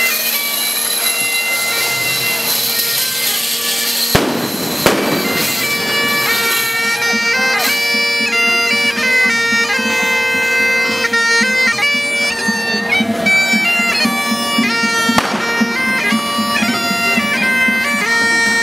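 Bagpipes playing: steady drones under the chanter, which holds one note at first and then plays a tune from about six seconds in. Two sharp bangs cut through about four seconds in.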